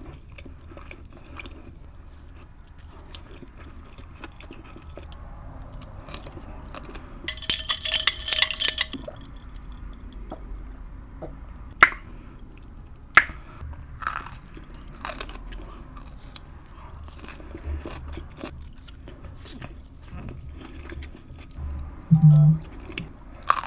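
Close-miked eating: a person chewing food, with a loud stretch of crunching about seven seconds in and a few sharp clicks later on.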